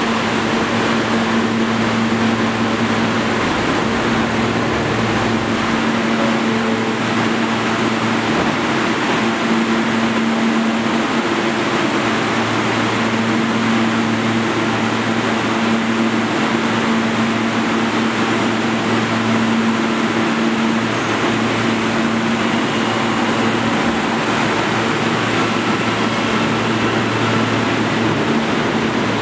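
An R160 subway train standing at a station platform, its air-conditioning and onboard equipment running with a steady low hum over a constant rushing noise.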